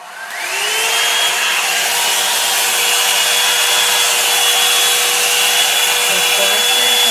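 Revlon hot-air hair dryer brush starting up: its motor whine rises over about the first second and then holds steady over a loud, even rush of blowing air.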